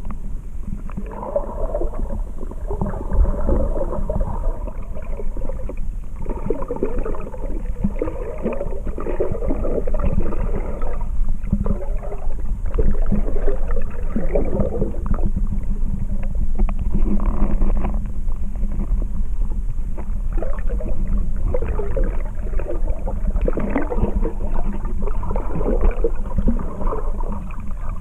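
Muffled underwater gurgling and sloshing picked up by a submerged camera moving through the water, over a steady low rumble, swelling and easing unevenly throughout.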